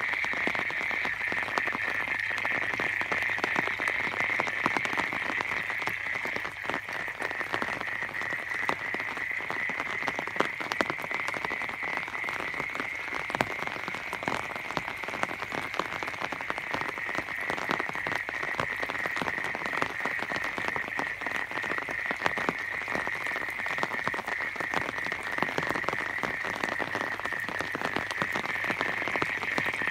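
A chorus of many frogs calling together in a steady, unbroken drone, over a light crackling patter of rain.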